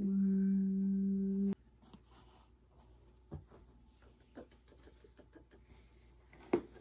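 A steady low hum for about a second and a half that cuts off suddenly, then faint rustling of hay and soft knocks from a plastic litter pan being handled, with a sharper knock near the end.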